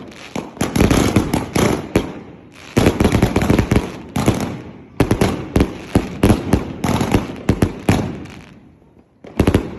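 Firework cake with 1.5-, 2- and 3-inch tubes firing: rapid launch thumps and aerial bursts, several a second, in volleys broken by short lulls.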